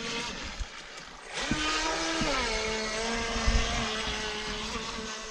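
Radio-controlled speedboat's motor whining as the boat runs across the water. The whine and its hiss come up about a second and a half in, the pitch drops a step a little after two seconds, then holds steady.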